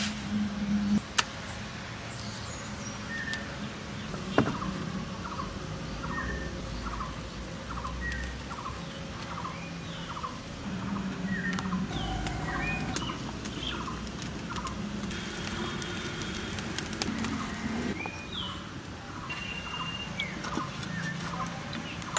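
Dry twigs and leaves handled and snapping as a wood fire is kindled in a clay mud stove, with two sharp snaps early and light crackling. A bird calls over and over with short falling chirps from about two seconds in.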